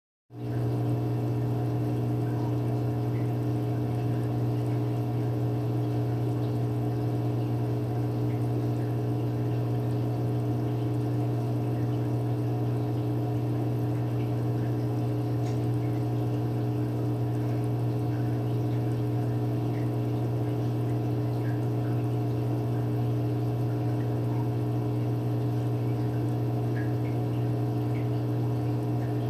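Aquarium pump running with a steady, even hum, and water moving through the tank.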